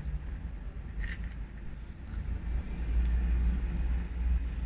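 A low rumble throughout, with two brief crisp crackles about a second and three seconds in as a piece of fried dried fish is torn apart by hand.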